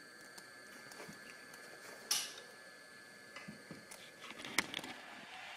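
A 00 gauge model locomotive running slowly: faint small clicks over a faint steady whine, with two sharper knocks about two seconds and four and a half seconds in.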